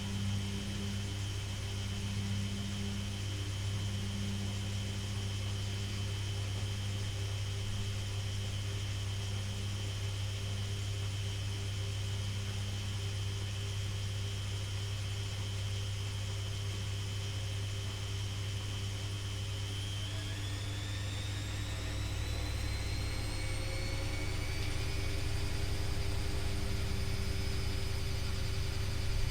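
Privileg Classic 30612 washing machine's motor running with a steady whine over a low hum. About twenty seconds in, the whine rises in pitch and grows a little louder as the drum speeds up into a spin.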